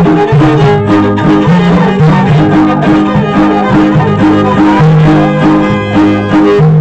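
Music led by a violin over strummed guitars, with a bass line repeating a short pattern of notes.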